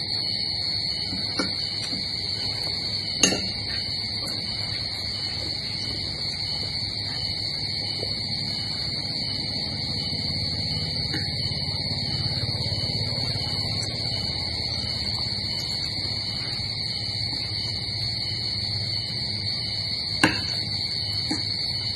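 Spoon clinking against a plate while eating, two sharp clicks, about three seconds in and near the end. Under them runs a steady high-pitched whine and a low hum.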